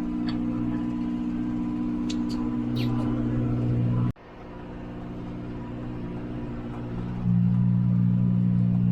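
Tractor engine running steadily. About four seconds in the sound cuts off abruptly and returns quieter, then it gets louder again a little after seven seconds.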